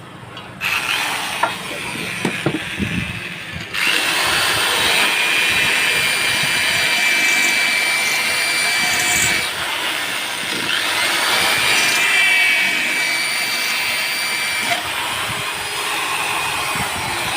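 Electric power tool running at length, with a high whine over a hiss, starting about a second in and growing louder about four seconds in.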